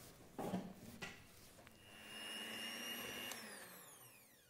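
A silicone spatula scrapes and knocks against a glass mixing bowl. About a second and a half in, an electric hand mixer starts with a steady whine, then its pitch falls as it spins down near the end.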